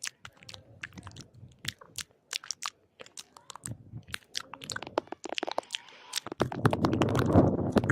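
Close-miked crunchy chewing, full of sharp clicks and crackles. Near the end comes a louder, rough stretch of heavy breathing on the microphone, lasting about a second and a half.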